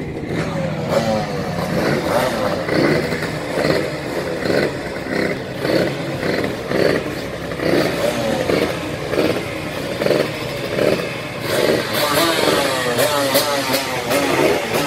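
Several race motorcycles, among them two-stroke 125s, idling with their throttles blipped over and over, so the engine notes rise and fall every second or so.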